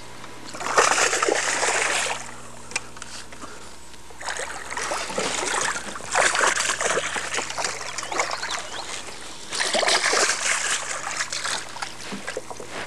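A hooked bass splashing and thrashing at the water's surface beside a boat, in three bouts: about a second in, a longer one from about four to eight seconds, and again around ten seconds.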